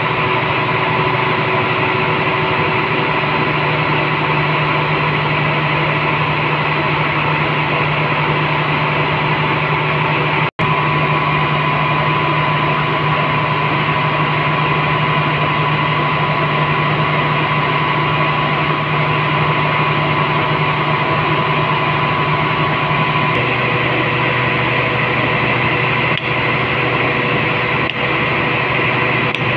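Steady loud drone of running plant machinery, a constant low hum with a high whine over it, which shifts slightly in pitch about two-thirds of the way through. A few light hammer taps near the end.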